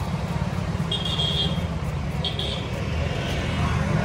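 Steady low rumble of road traffic, with two short high-pitched beeps about one and two seconds in.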